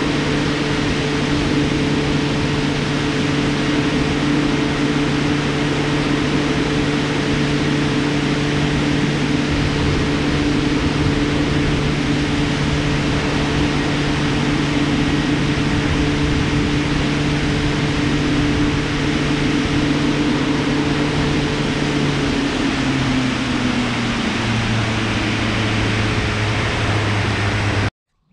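Yamaha outboard motor driving a boat at speed, a steady engine note under loud rushing wind and water noise. About 22 seconds in, the engine note drops in steps as the throttle comes back, and the sound cuts off suddenly near the end.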